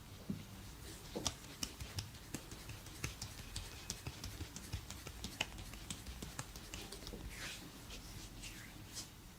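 Hands massaging a head and back: irregular light taps and clicks, with a few brushing rubs of hands on skin, hair or clothing near the end.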